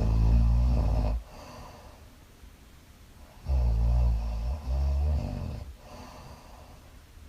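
A woman snoring in her sleep: a loud, low snore that ends about a second in, then another that starts about three and a half seconds in and lasts about two seconds, with quieter breaths between.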